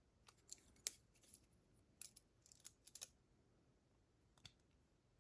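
Faint, scattered small metallic clicks from handling a lock cylinder and its small parts, about a dozen short ticks in a few loose clusters.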